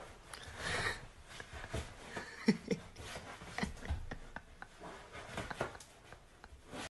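Keeshond scrabbling at a sofa as it struggles to climb up: faint rubbing and scuffing of paws and fur on the upholstery, with a few short, soft vocal sounds near the middle.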